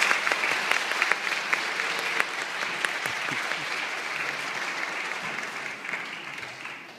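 Audience applauding, loudest at first and gradually dying away toward the end.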